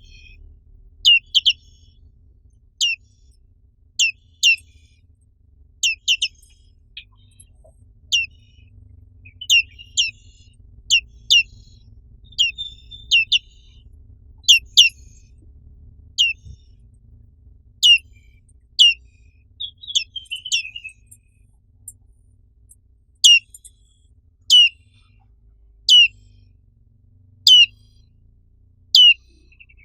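Black-capped white-eye (pleci) calling: sharp, high whistled notes that drop steeply in pitch, given singly or in quick pairs about every one to two seconds, with a couple of brief twittering phrases.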